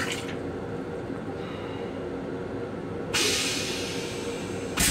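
Steady rumble of the M7 railcar under way. About three seconds in, the stainless-steel toilet's flush gives a loud hiss of a second and a half, cut off by a sharp clunk at the end.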